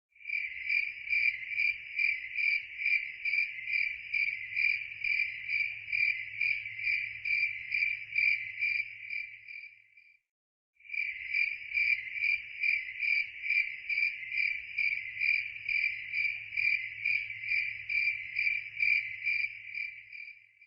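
Crickets chirping at night in an even, steady rhythm of about two to three chirps a second. The chirping breaks off briefly about halfway through, then resumes.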